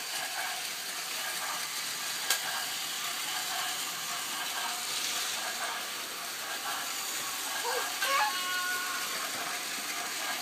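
Battery-powered Plarail toy Shinkansen trains running on plastic track: the steady whirring rattle of their small motors and wheels, with one sharp click a couple of seconds in.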